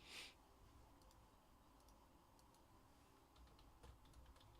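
Near silence with a brief swish just at the start and a few faint clicks near the end, from trading cards being handled.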